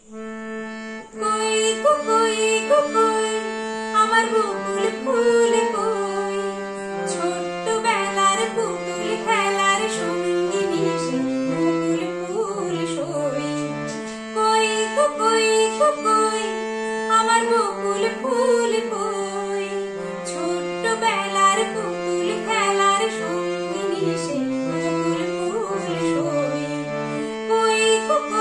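Harmonium playing a melody with long held notes, its sound coming up about a second in, while a woman sings a Bengali adhunik song along with it.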